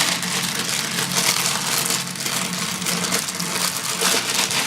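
Plastic packaging rustling and crinkling as it is handled, a dense run of small crackles that stops abruptly near the end.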